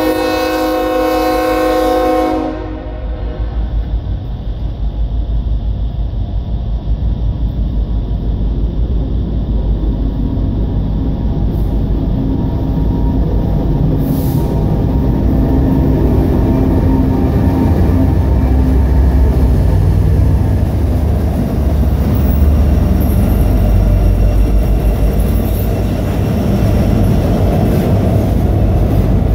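Diesel freight locomotive (Norfolk Southern 8103, a GE ES44AC) sounding its air horn in a held chord of several notes that cuts off about two and a half seconds in. The low rumble of its engine then builds as it draws near, and the double-stacked container cars run past close by on the rails near the end.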